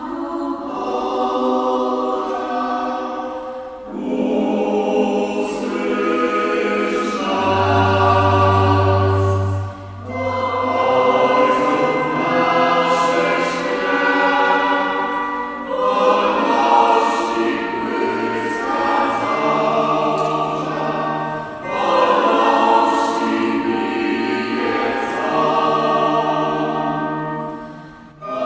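A small choir singing a slow hymn in phrases of about six seconds with short breaks between them, accompanied by an electronic organ holding low sustained notes under the voices.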